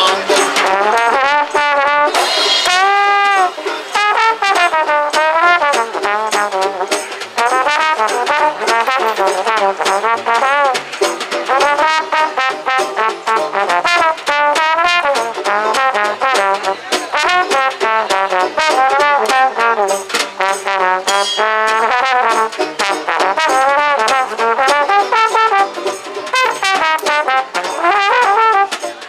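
Trombone playing a jazz melody with sliding notes, over a steady beat from a small band of drums, upright bass and guitar.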